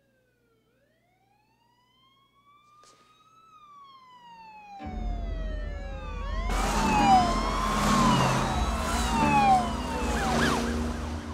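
Several police car sirens wailing, rising and falling in overlapping sweeps. They start faint and grow steadily louder as the cars approach, and the noise of the cars' engines and tyres comes in about five seconds in.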